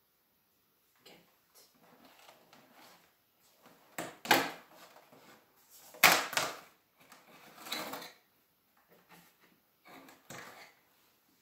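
An advent calendar box being taken from a shelf and handled to open a compartment: a string of knocks, scrapes and rustles, the loudest about four and six seconds in.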